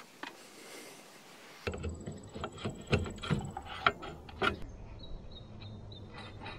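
Small metal parts clicking and knocking in the hands as the glow plug resistor coil and its wire terminals are handled, a quick run of sharp clicks starting about two seconds in and easing off just before the five-second mark.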